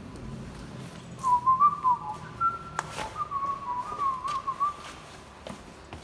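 A person whistling a short, wandering tune for about three and a half seconds, with a single sharp click partway through.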